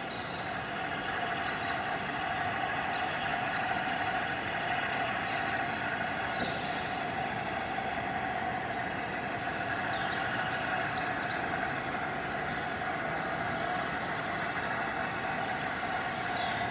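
Steady humming drone of an approaching train in the distance, over a low rumble, with faint high chirps now and then.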